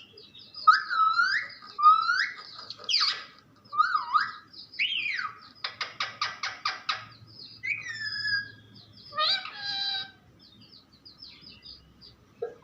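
Pet parrot calling in a string of rising and falling whistles and chirps, with a quick run of clicks about six seconds in.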